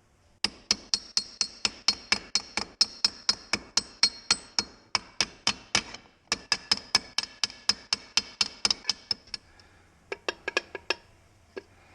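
Hammer blows on a bowed metal part to flatten it, sharp ringing metallic strikes about four or five a second. There is a brief break around six seconds in, and a last few blows near the end.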